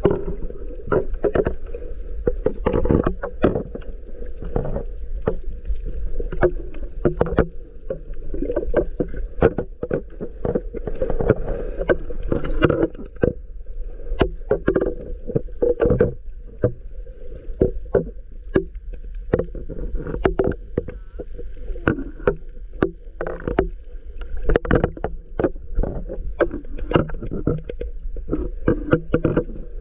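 Underwater sound picked up by a camera in its housing: water sloshing and churning with a steady low rumble, and many irregular sharp clicks and crackles throughout.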